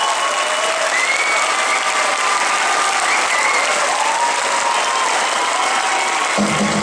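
A large theatre audience applauding steadily, with scattered calls rising and falling above the clapping. Near the end the band comes in with a low, pulsing beat.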